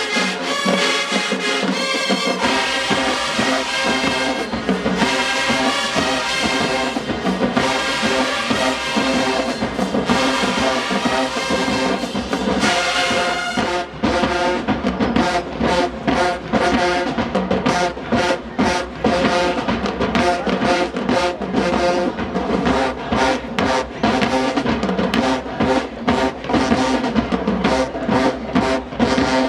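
HBCU marching band playing loudly, brass section with drumline. About halfway through, the playing changes from held brass chords to short, punched rhythmic hits.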